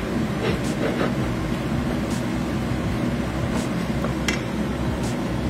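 A steady mechanical hum, like kitchen ventilation, runs throughout. Over it come a few short clicks and scrapes of a wooden spoon against a stainless-steel pot as onions and tomato are stirred.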